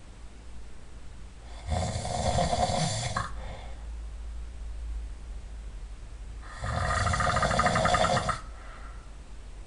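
A person snoring loudly: two long snores about five seconds apart, the second with a fast fluttering rattle.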